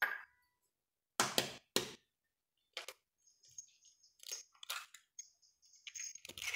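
Kitchenware being handled: a few sharp knocks and clicks, loudest in the first two seconds and lighter later, with a light rustle in between near the end.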